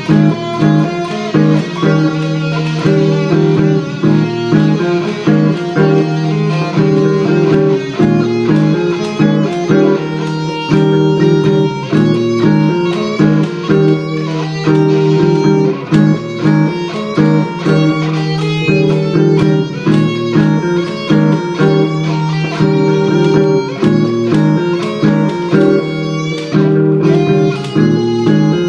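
Gibson Les Paul electric guitar played over a repeating looped backing part from a Boss loop pedal, with a run of short single-note lead lines on top.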